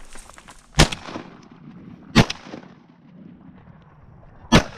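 Three shotgun shots fired at ducks, spaced unevenly, the last near the end.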